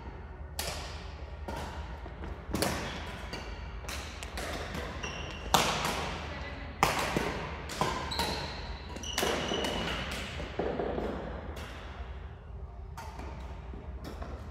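Badminton rally: rackets striking the shuttlecock at irregular intervals, some hits sharp and loud, each ringing briefly in a large hall. Short high squeaks, typical of sneakers on a court floor, come in between.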